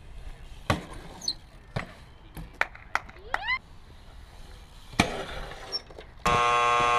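A BMX bike on concrete gives several sharp clacks and knocks, with a couple of short rising squeaks. About six seconds in, a loud, steady electronic buzzer starts abruptly and is the loudest sound.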